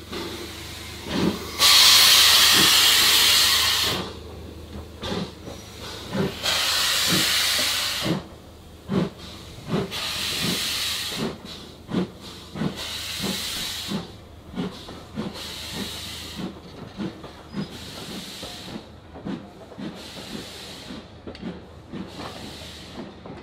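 Ivatt 2MT steam tank locomotive 41298 pulling out of the station with its train. A loud rush of steam hiss lasts about two seconds near the start, then weaker puffs of exhaust follow about every two seconds, over a row of short rhythmic knocks from the wheels that come faster as the train gathers speed.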